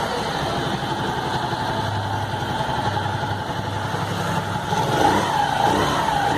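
Motorcycle engine running with its two crankshaft main bearings freshly replaced, idling steadily and then revved with a few throttle blips about five seconds in.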